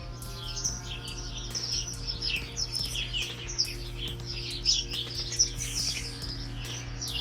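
A dense chorus of many small songbirds chirping and twittering rapidly and overlapping, over soft held musical tones that change chord just after the start and near the end.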